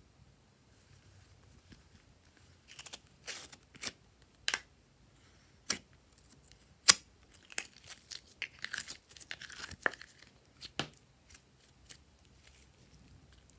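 Hands opening a pink plastic tub of store-bought slime and pulling the sticky slime out and squeezing it: scattered sharp plastic clicks and snaps, the loudest about halfway through, and a run of sticky crackling and tearing about two-thirds of the way in.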